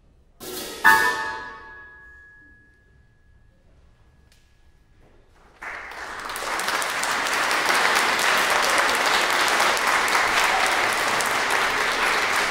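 A pair of hand-held clash cymbals struck together about a second in, ringing and fading out over the next few seconds. Then, about five and a half seconds in, an audience breaks into steady applause.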